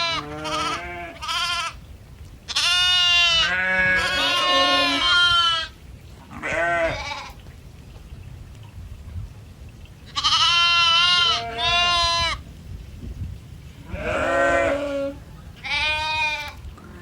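Bleating farm animals: a string of wavering, quavering bleats with short pauses between, the longest about three seconds in.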